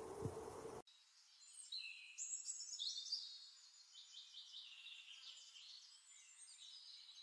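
Small songbird singing a quiet, high-pitched song of quick chirps and trills. It starts abruptly just under a second in, cutting off a low buzzing hum with a couple of clicks.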